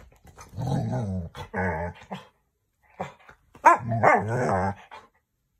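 Large dog vocalizing in two bouts of grumbling, growling barks whose pitch bends up and down.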